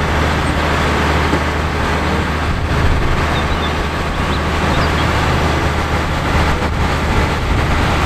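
Diesel engine of a DAF truck-mounted concrete mixer running steadily with a strong low hum, while its hydraulic conveyor boom folds down.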